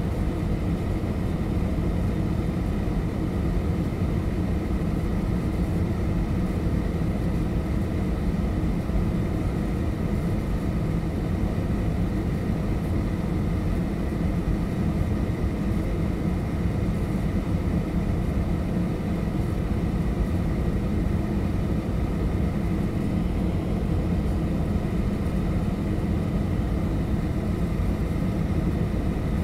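Steady cabin noise inside a Boeing 737-800 on its landing approach: engine and rushing-air noise makes a constant low rumble, with a faint steady whine above it.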